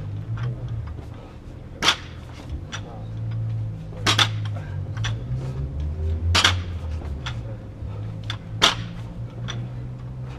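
Barbells loaded with rubber bumper plates hitting a concrete floor during repeated power snatches: a sharp bang about every two and a half seconds, four in all, with lighter clinks of plates and collars in between, over a steady low hum.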